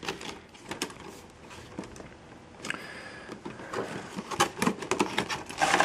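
Cardboard box and plastic packaging being handled: scattered light clicks and short rustles, turning into a louder, steady crinkling rustle near the end.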